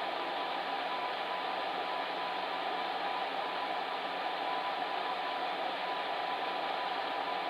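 Fan heater running steadily: an even whooshing rush of air from its fan, with a faint steady hum.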